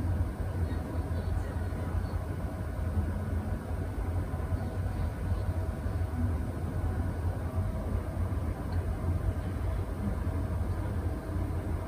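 Steady low mechanical hum with faint higher steady tones riding on it, unchanging throughout.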